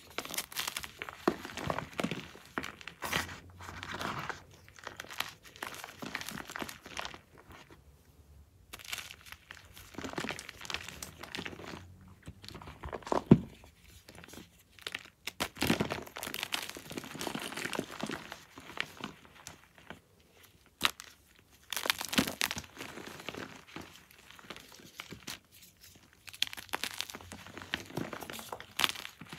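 Blocks of gym chalk crushed and crumbled by hand: irregular dry crunching and crumbling in clusters with short pauses, and one sharp crack about thirteen seconds in.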